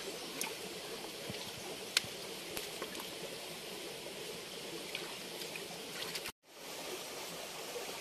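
Shallow stream trickling over rocks, with a few small clicks and splashes from hands working among the stones in the water in the first few seconds. The sound drops out briefly about six and a half seconds in.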